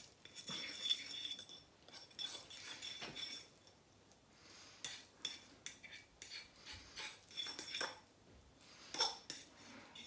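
Metal spoon stirring noodles in a bowl, with irregular clinks and scrapes against the bowl's side as the thick, sticky seasoning paste is mixed through.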